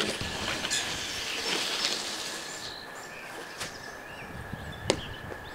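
Outdoor yard ambience with small birds chirping now and then and a steady faint high tone, broken by a few short sharp knocks, the loudest near the end.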